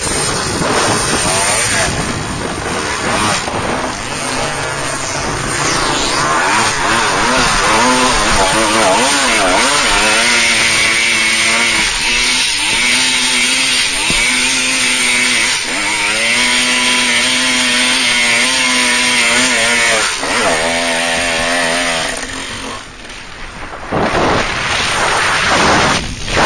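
Small off-road vehicle engine revving up and down repeatedly as it is ridden over rough sandy trail, with wind and rattle noise over the microphone. The engine note drops briefly near the end, then picks up again.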